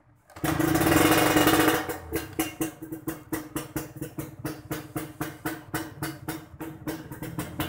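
A Yamaha 125Z's single-cylinder two-stroke engine is kick-started through a 304 stainless-steel Ahau racing exhaust. It catches about half a second in and runs loud for over a second. It then drops back to an idle that pulses about three times a second.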